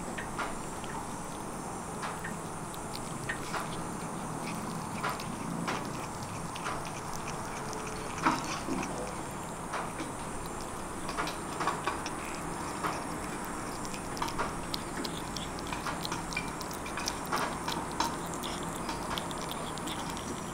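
Kitten chewing and tearing at a piece of grilled chicken: irregular small clicks and smacks of eating, the loudest about eight seconds in, over a steady background hiss.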